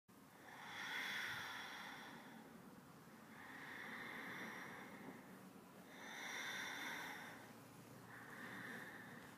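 A woman's slow, deep breathing while she holds yoga bridge pose: about four faint breaths, each a soft rush that swells and fades, roughly every two and a half seconds.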